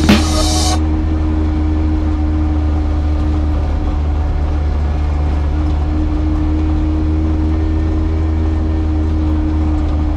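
Piaggio Ape three-wheeler's small engine running at a steady pace, a constant drone heard from inside the cab.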